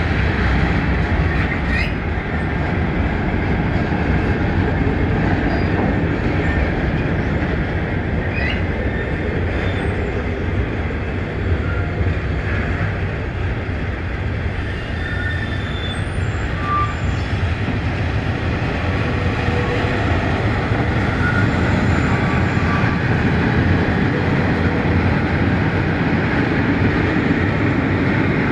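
Intermodal freight train of flat wagons carrying swap bodies and semi-trailers rolling past steadily: a continuous rumble of wheels on rail, with brief, faint wheel squeals now and then.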